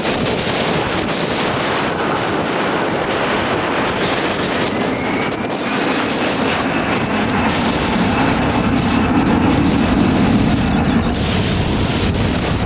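Jet engines of an easyJet Airbus A320 running at high power as it rolls down the runway, with a faint rising whine and a low rumble that grows louder toward the last few seconds. Wind buffets the microphone throughout.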